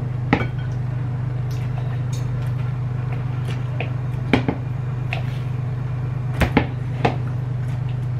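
A few short knocks and clinks of dishes or cookware being handled, over a steady low hum. The knocks come once early, once around four seconds, as a quick pair near six and a half seconds and once more just after.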